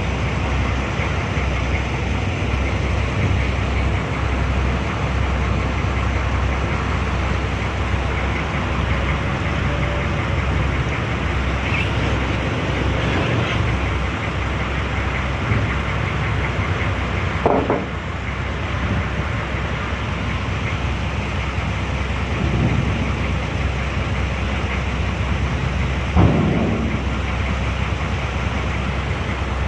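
Steady engine noise of a small river car ferry under way as it comes in to the landing, with a short knock about two-thirds of the way through and another near the end.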